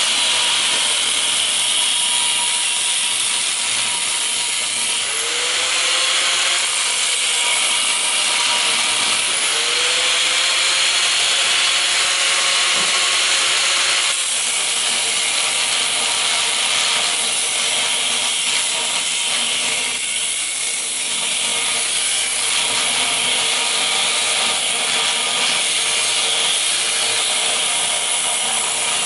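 A workshop power tool running without a break, a steady rasping hiss throughout.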